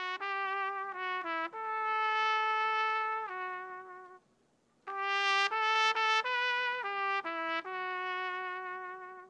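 A single wind instrument plays a slow solo melody in two phrases, with held notes and a short pause about four seconds in.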